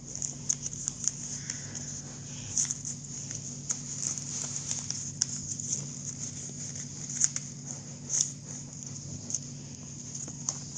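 Sheet of paper being handled and folded into a paper airplane: irregular light crackles and taps of the paper, over a steady low hum.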